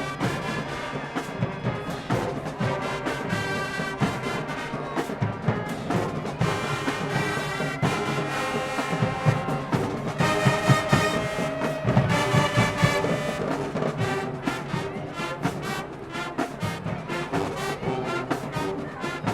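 High school marching band playing loudly: a brass section of trumpets and trombones over a drumline with rapid, punchy drum hits.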